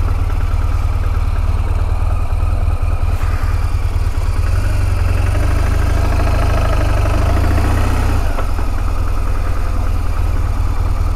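Motorcycle engine running at low speed as the bike rolls slowly along a gravel lane.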